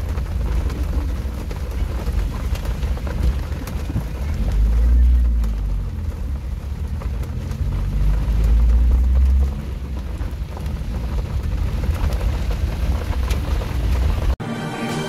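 Rain on a moving car's windscreen and body, over a steady low rumble of road and engine noise that swells twice. It cuts off abruptly near the end into music.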